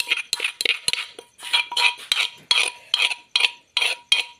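A spoon clinking and scraping against a dish in quick, even strokes, about three or four a second, as food is mixed.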